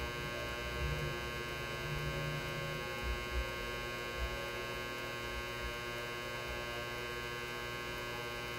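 Steady electrical hum with a buzzy stack of overtones, even in level throughout, with a few faint low bumps in the first few seconds.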